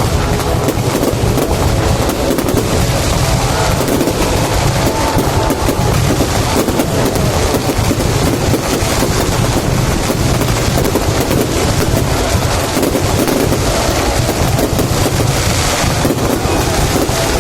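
Fireworks display with many shells bursting in quick succession, the bangs and crackle merging into a continuous loud rumble.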